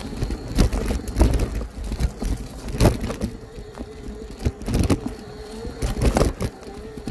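Electric bike jolting over rough off-road ground: irregular heavy knocks and rattles from the bumps, over a steady rumble and a faint wavering hum.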